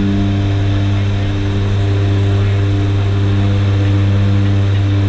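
Short Skyvan's twin turboprop engines and propellers droning steadily, heard from inside the cabin: a constant low hum with steady higher tones above it.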